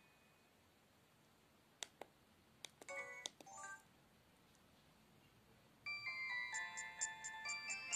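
Samsung SGH-E250 mobile phone: a few sharp key clicks and two brief tones about two to four seconds in, then about six seconds in its speaker starts a bright polyphonic jingle with quick high chiming notes, the melody attached to a built-in MMS template.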